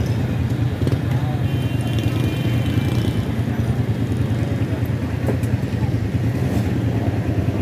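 Busy street ambience: a steady low engine rumble from traffic with people talking in the background. A faint high tone sounds briefly about a second and a half in.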